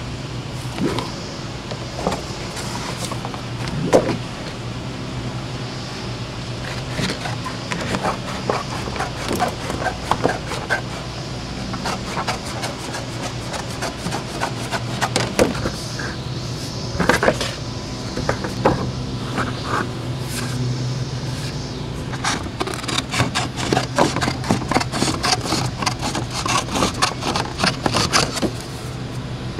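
Hand snips cutting chipboard: irregular crunching snips with the board rustling and flexing as it is trimmed, the cuts coming thick and fast over the last several seconds. A steady low hum runs underneath.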